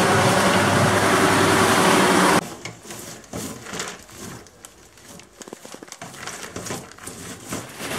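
Electric grape crusher running steadily, its motor driving a belt and two ribbed rollers that crush the grapes, with a constant hum, cutting off abruptly about two seconds in. Then quieter rustling and light clicks of grapes being rubbed over a wire mesh screen to strip the berries from the stems.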